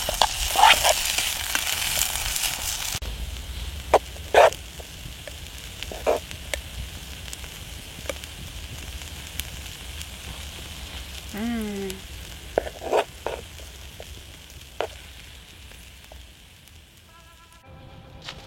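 Food sizzling in a pan for about three seconds, then a quieter stretch with scattered sharp clicks and knocks.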